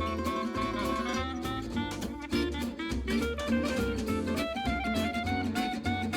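Background music: an upbeat jazzy instrumental with plucked strings over a steady beat.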